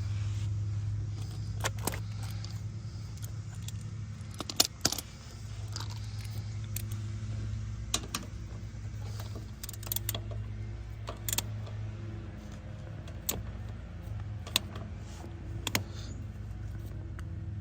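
Metal tools clinking and knocking at irregular intervals while the drain plug is refitted under a mini excavator's hydraulic tank, over a steady low hum.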